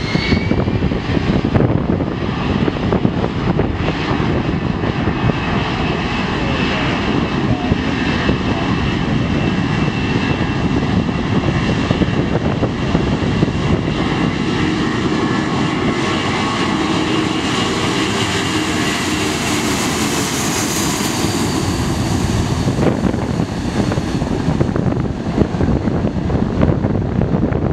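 Boeing C-17 Globemaster III's four Pratt & Whitney F117 turbofans at takeoff power. A rising whine as they spool up at the start gives way to steady, loud jet noise through the takeoff roll, sharpest in the high end about twenty seconds in.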